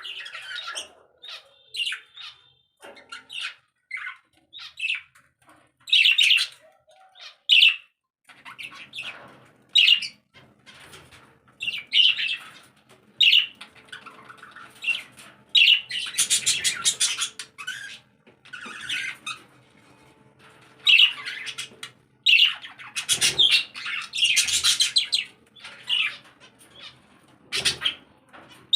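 Caged pet birds chirping and squawking: a run of short, sharp high calls, several birds at once, thickening into dense chatter twice. A faint low steady hum lies underneath from about a third of the way in.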